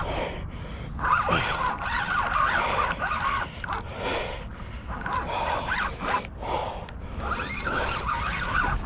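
Spinning reel cranked hard against a big striped bass on the line, its gears whining in short uneven rises and falls over a steady low rumble.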